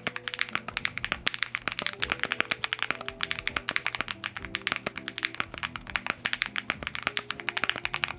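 Fast, continuous typing on a Pixelspace Capsule 65 custom mechanical keyboard with Kailh BCP switches, JTK Royal Alpha keycaps, an FR4 plate and case, plate and PE foam: a steady stream of sharp keystroke clicks. Soft music plays underneath.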